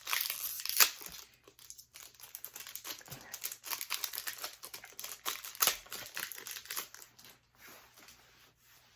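A foil booster-pack wrapper being torn open and crinkled in the hands: dense, irregular crackling with sharper snaps, thinning out near the end.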